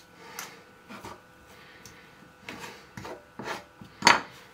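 Metal forks scraping and tapping on a bamboo chopping board as cooked chicken breast is shredded, in a run of short irregular strokes, the loudest just after four seconds in.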